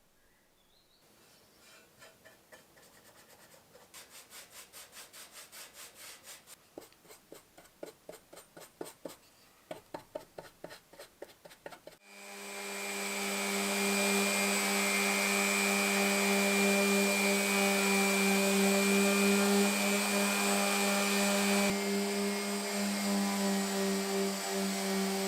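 Hand strokes rubbing back and forth on wood, about three to four a second and growing louder. About twelve seconds in, an electric power tool starts and runs steadily with a whining hum.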